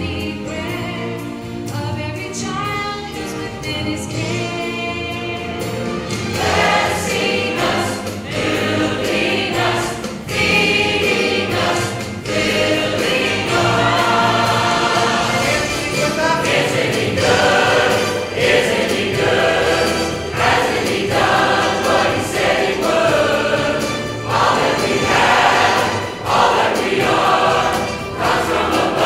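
Church choir singing a gospel song in parts, quieter at first and swelling fuller and louder about six seconds in.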